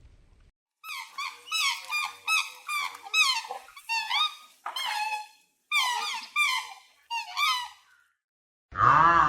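A rapid run of short, high-pitched squeaky animal calls, several a second in bursts with brief gaps between them. A louder, lower honk-like call starts just before the end.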